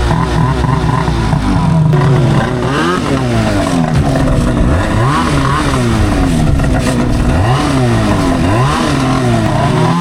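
Snowmobile engines running and revving, the engine pitch rising and falling again and again, as the sleds pull away.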